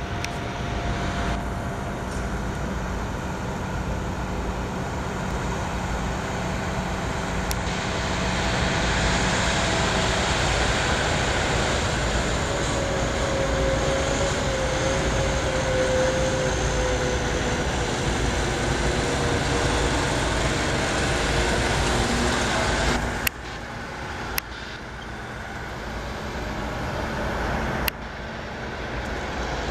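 Diesel engine of an Ottawa shunt truck (yard tractor) running as it drives about, a steady rumble with a faint whine that shifts in pitch partway through. The noise drops suddenly about three-quarters of the way in, with a few sharp clicks.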